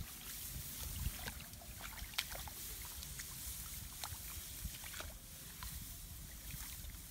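Hands groping in shallow muddy paddy water among rice stalks: faint scattered small splashes and rustles over a steady low rumble.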